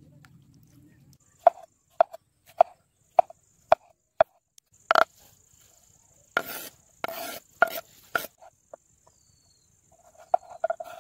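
Kitchen knife chopping on a wooden cutting board, sharp knocks about two a second. Then chopped cucumber is scraped off the board into a wooden bowl in several rasping sweeps. Near the end the knife starts slicing through a tomato on the board.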